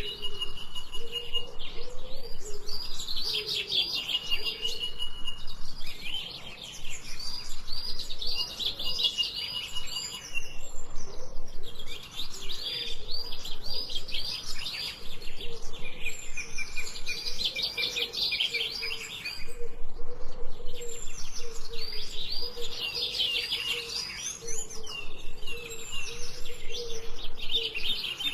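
A chorus of songbirds chirping, with rapid runs of short repeated chirps coming in clusters every few seconds and a few held whistled notes between them. A low note repeats steadily underneath.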